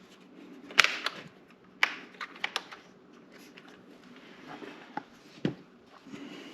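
A handful of short, sharp clicks and knocks of hard parts being handled, scattered irregularly over a few seconds.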